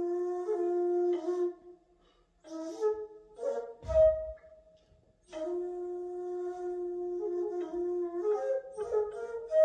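Daegeum, the Korean bamboo transverse flute, playing long held notes in phrases with brief pauses between them, accompanied by occasional plucked notes on a gayageum.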